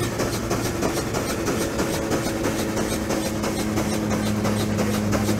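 1920 Huber steam traction engine running belted to a fan that loads it, its exhaust chuffing in a fast, even beat of several strokes a second over a steady droning hum.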